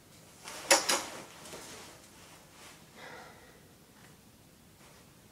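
Two sharp knocks in quick succession about a second in, then faint rustling in a quiet room.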